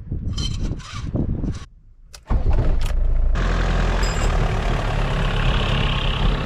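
Motorhome engine starting about two seconds in, after a short pause, then running steadily. Before it come a few brief knocks and rustles.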